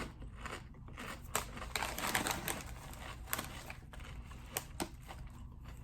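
Crunching on crinkle-cut kettle potato chips: scattered sharp crunches, thickest about one to three and a half seconds in.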